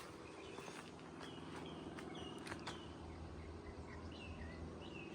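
Small birds chirping, short high calls repeated every half second or so, over a faint steady low hum.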